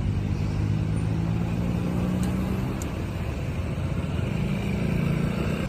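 Motor vehicle engine running with a steady low hum over road traffic noise. The hum eases off a little around the middle and comes back stronger later on.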